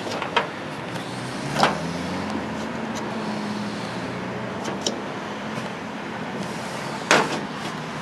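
A motor vehicle's engine running steadily in the background, with a faint low hum. A few sharp knocks sound over it, one about a second and a half in and a louder one near the end.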